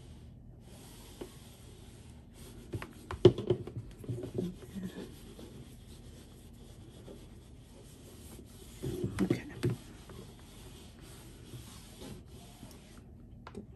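Cricut EasyPress heat press sliding and pressing over a cotton bandana, soft rubbing and scuffing of the press plate and hands on the fabric. It comes in a few short bursts: about three seconds in, around four to five seconds, and again around nine seconds.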